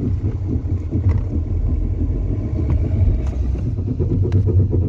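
Hyundai Verna rolling with the brakes applied lightly: a heavy low rumble from the brake with a few sharp knocks through it. The mechanic traces it to a loose brake caliper whose bolt had come out.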